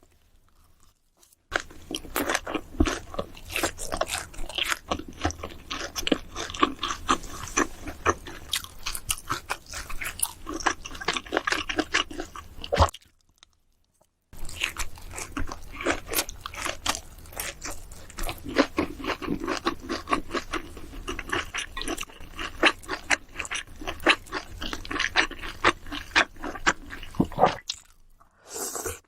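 A person chewing and biting food with wet crunching and smacking, starting about a second and a half in. The chewing stops abruptly for a moment midway, then resumes.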